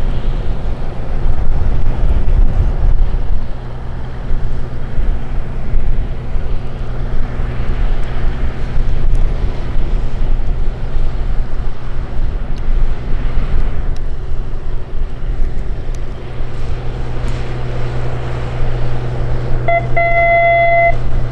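A fishing boat's diesel engine runs with a steady low hum as the boat passes close by, with wind rumbling on the microphone. Near the end a steady high tone sounds for about a second.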